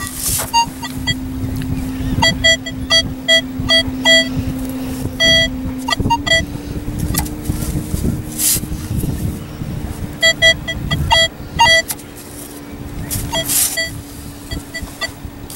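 Nokta Makro Legend metal detector sounding a steady low tone that steps up slightly in pitch about six seconds in, with repeated clusters of short beeps. Three times, a stainless-steel sand scoop digs into dry sand with a brief hissing scrape.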